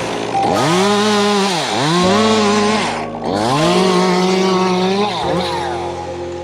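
Two-stroke chainsaw revved to full throttle three times, each burst held for about a second or more before dropping back to idle. Background music comes in at the start and again near the end.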